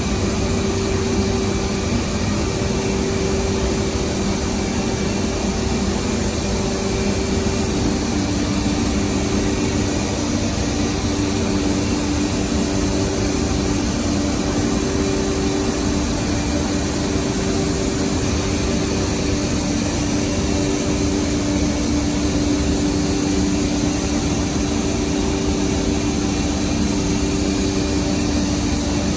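Steady drone of industrial machinery running in a factory hall, with a low hum that shifts between two pitches every few seconds.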